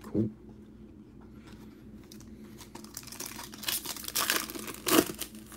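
Foil trading-card pack wrapper crinkling and tearing as it is opened by hand, building up from about three seconds in to a sharp rip about five seconds in.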